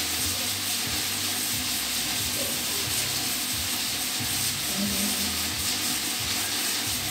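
Steady rush of water pouring from an aquarium filter return pipe and splashing into the tank.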